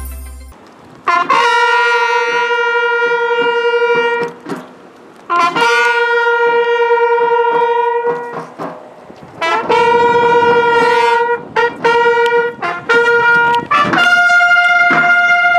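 Solo trumpet playing a slow call of long held notes with short breaks between them, rising to a higher held note near the end.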